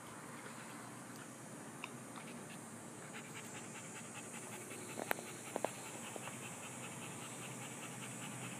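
Siberian husky panting in a quick, even rhythm that grows plain from about three seconds in, after chasing down a rabbit. A few sharp clicks sound about halfway through.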